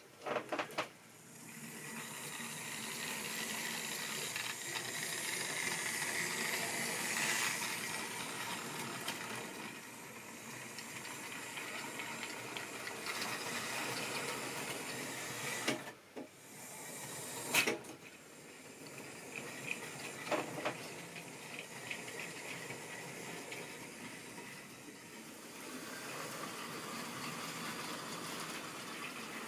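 Model railway train running along the track: a steady whirring hiss from its motor and wheels that swells and fades as it goes, with a few sharp clicks along the way.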